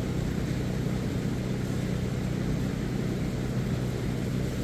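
A steady low hum with an even hiss over it, unchanging, with no distinct knocks or impacts.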